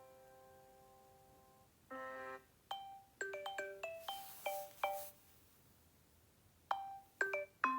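Samsung Galaxy J7 (2015) stock ringtones playing. A held chord fades out, then a short chord sounds, followed by a quick run of bell-like mallet notes. After a pause, a few more notes come near the end.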